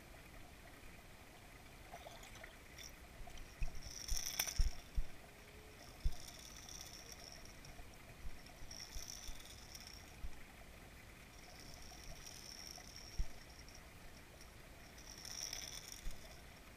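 Faint water sound picked up by a camera submerged in a swimming pool, with about five short hissing swishes a few seconds apart and a few soft low knocks.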